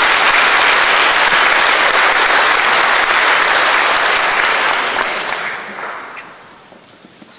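Audience applauding, the clapping dying away between about five and six seconds in, with a few last scattered claps.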